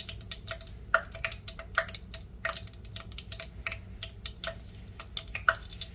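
Bacon frying in a pan: hot fat sizzling with irregular sharp pops and crackles.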